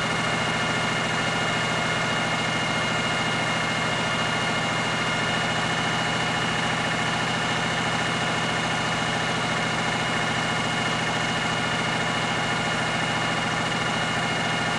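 An engine running steadily at a constant idle, with a steady high whine over it.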